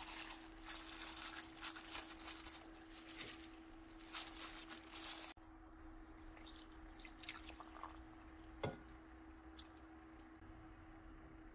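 Rustling from a plastic-gloved hand handling fish fillets in a stainless steel pot, then, after an abrupt cut, thick red seasoning sauce pouring from a glass bowl onto the fish in soft plops and drips, with one sharp knock partway through.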